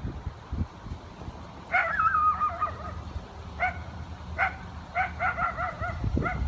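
Mallard hen giving short, repeated calls as she leads her ducklings, with one longer wavering call about two seconds in and a quick run of about five calls around five seconds in. Low rustling and handling noise underneath, louder near the end.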